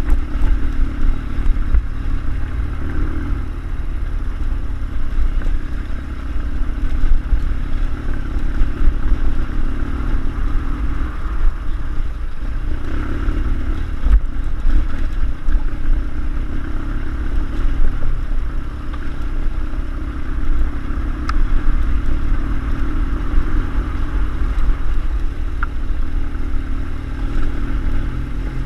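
BMW airhead motorcycle's air-cooled boxer-twin engine running steadily while riding off-road, its loudness wavering, over a heavy low rumble.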